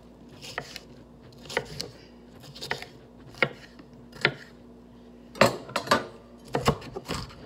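Kitchen knife chopping vegetables on a cutting board: single knocks about once a second, then a quicker run of cuts near the end.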